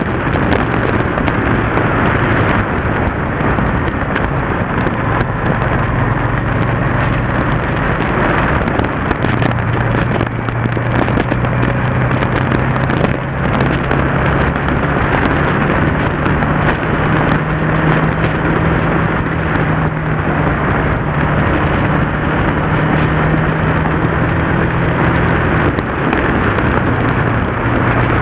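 Yamaha TDM motorcycle's parallel-twin engine running at steady road speed, heard under heavy wind noise on the microphone. The engine note rises a little about nine seconds in and again around the middle, then drops back a couple of seconds before the end.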